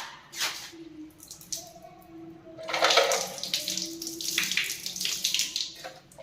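Water running and splashing in uneven surges, loudest from about three seconds in, with a few light clicks before it.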